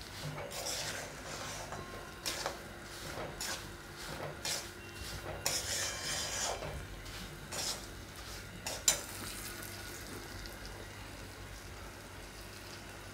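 Steel spatula stirring and scraping coarse semolina roasting in ghee in a steel kadai, in irregular scrapes and clinks, with one sharp clank about nine seconds in. After that the stirring stops and only a faint steady hiss remains.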